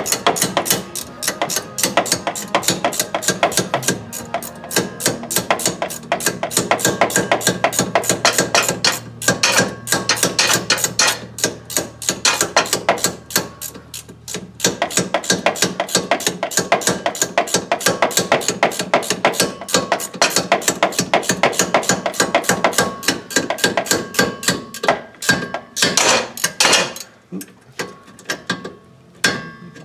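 Hand ratchet clicking in rapid strokes as a brake caliper bolt is run in and tightened, with a few short pauses.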